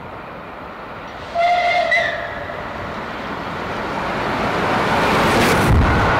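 Steam locomotive No. 35028, a Merchant Navy class Pacific, sounds a short whistle of under a second, about a second and a half in. Its running noise then swells steadily as it approaches at speed, with a sudden loud rush near the end as it passes close under the camera.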